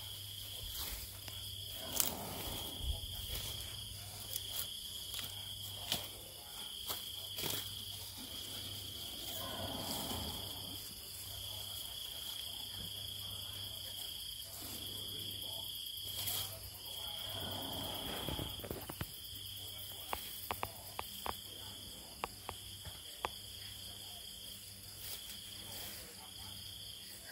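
A sleeping Asian elephant snoring, one slow, drawn-out breath about every eight seconds, three in all. Crickets chirp steadily over it in a high trill.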